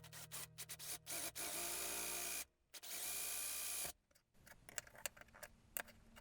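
Small power drill running in two short bursts of about a second each, drilling holes in a moka-pot handle, with handling clicks and knocks around them.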